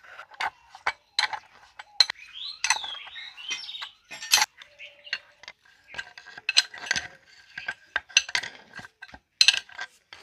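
Steel spanners clinking and clanking against the bolts, differential case and crown wheel of a tractor differential being assembled, in an irregular run of sharp metallic clinks.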